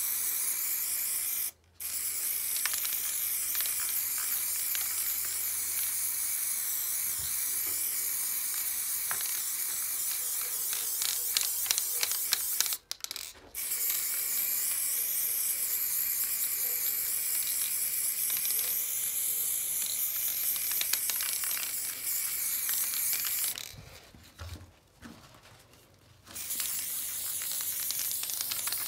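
Aerosol spray-paint can hissing in long, steady sprays. It breaks off briefly twice and pauses for a couple of seconds about three-quarters of the way through.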